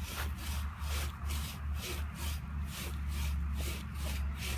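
Hand saw cutting through a Christmas tree trunk, its teeth rasping through the wood in quick, even push-and-pull strokes, about three a second.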